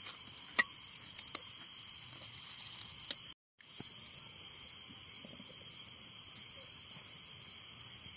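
Night-time insect chorus, crickets chirring steadily and high-pitched, with a few sharp clicks in the first few seconds. The sound drops out completely for a moment about three and a half seconds in, and the chirring comes back in quick, even pulses.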